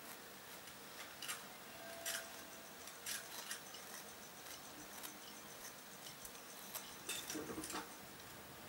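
Cat licking and mouthing a paper catnip sachet: faint, irregular clicks and rustles.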